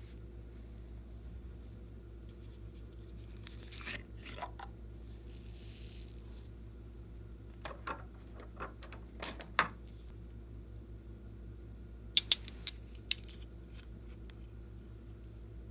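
Scattered small handling sounds from slime-making: light crinkles, rustles and taps in a few short clusters, with sharp clicks about twelve seconds in, over a steady low hum.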